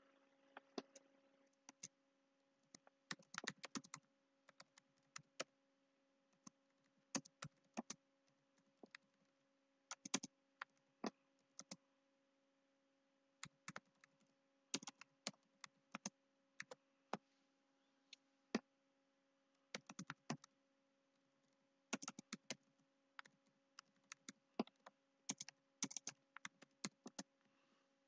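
Typing on a computer keyboard: irregular runs of keystroke clicks with short pauses between, over a faint steady electrical hum.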